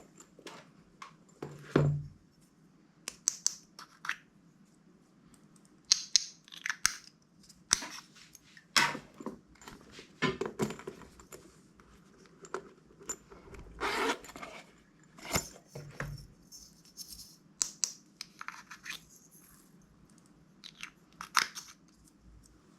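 Glossy slime being squished and stretched by hand, giving irregular sticky clicks, pops and crackles.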